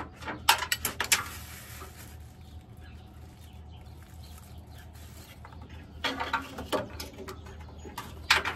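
Scattered sharp clicks and knocks of hand tools and parts being handled on the truck: a cluster about a second in, another around six seconds in, and a few near the end, over a steady low hum.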